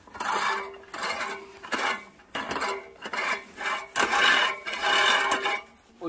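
Manual push reel mower cutting grass, its spinning blades whirring against the cutter bar in a run of short pushes, each with a steady metallic hum.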